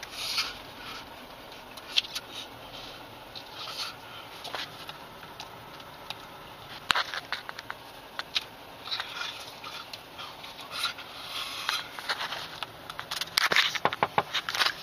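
Handling noise from a handheld camera: rustling, scraping and scattered clicks, with a dense run of clicks near the end.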